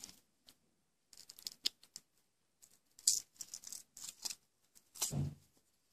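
Paper nail form crinkling and clicking as it is handled and pulled on a finger during acrylic nail work, in two short clusters of small crisp rustles, with a duller, lower sound near the end.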